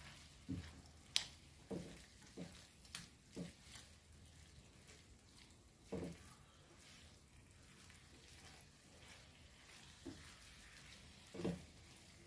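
Silicone spatula stirring a prawn chilli fry in a non-stick frying pan: faint, scattered soft scrapes and light knocks against the pan at irregular intervals, with two sharp clicks in the first few seconds.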